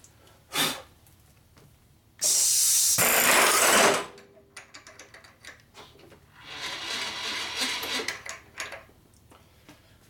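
A drill spotting out a porosity hole in a welded shovelhead engine case. It runs loud for about two seconds, with its whine dying away after it stops, then runs again more quietly for about two seconds. A short knock comes just before the first run.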